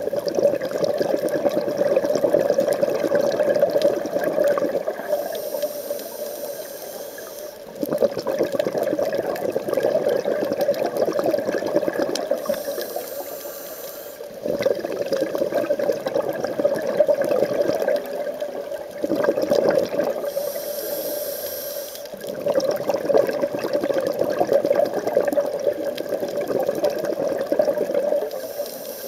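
Scuba regulator breathing underwater: long bubbling exhalations alternating with short hissing inhalations, about four breaths in a slow, even rhythm.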